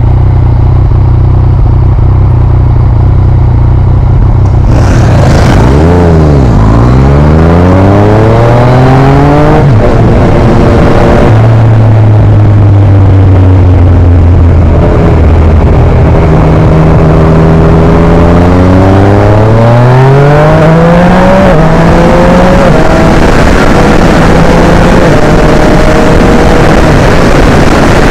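Yamaha MT-09's 847 cc inline-three engine with an Akrapovic exhaust, running steadily at first, then accelerating hard, pitch climbing to a sudden drop at a quick upshift about ten seconds in. It holds steady, then climbs again with further upshifts near the end, with wind rush building as speed rises.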